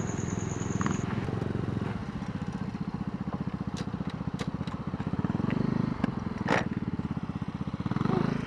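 Suzuki Smash 115 underbone motorcycle's single-cylinder four-stroke engine running at low revs, with gravel crackling under the tyres. A few sharp clicks come through, the loudest about six and a half seconds in.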